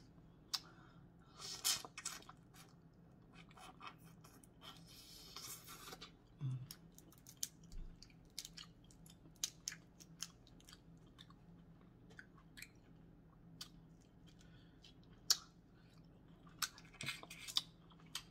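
Boiled crawfish shells being cracked and peeled by hand, with chewing: a scattered run of short sharp clicks and crackles, a few louder than the rest.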